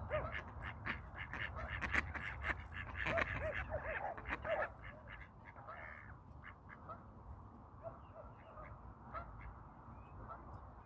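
Ducks quacking in quick runs of short calls for the first few seconds, then only faint, scattered calls, over a low steady rumble.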